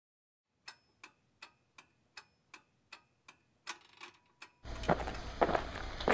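Clock ticking steadily, about three sharp ticks a second. Near the end it changes abruptly to footsteps over a steady low hum.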